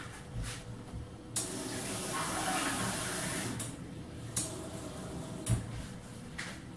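Kitchen tap running into a glass bottle for about two seconds, refilling it with water, with a few light knocks before and after.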